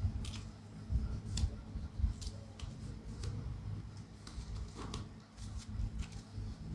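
Knit work glove with a coated palm being pulled on over the wrist and its cuff tugged: soft fabric rubbing with scattered light clicks over a low rumble.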